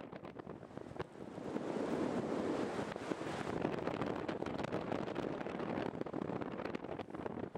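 Wind rushing over and buffeting the microphone of a camera in flight: a steady rush with frequent crackles, growing louder over the first two seconds.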